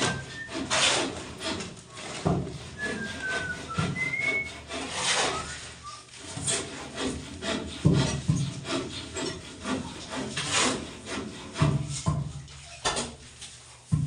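Irregular rubbing and scraping strokes with scattered knocks, like work on wood, and a few short high chirps about three and four seconds in.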